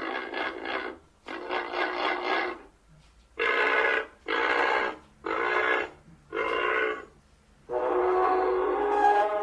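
A series of loud honking calls made from goose, duck and sea lion sounds as an imagined hadrosaur or iguanodont voice: about seven honks, each well under a second to about a second and a half long, with short gaps, the last one the longest.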